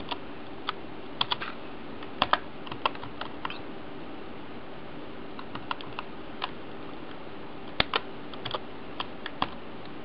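Typing on a computer keyboard: irregular keystrokes in short bursts, with a pause of about two seconds in the middle.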